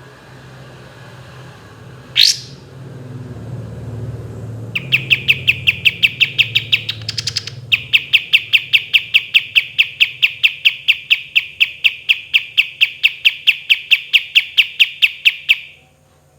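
Kapas tembak songbird calling: one sharp upward whistle, then a long fast roll of evenly repeated notes, about seven a second, broken briefly by a higher trill. The roll cuts off near the end.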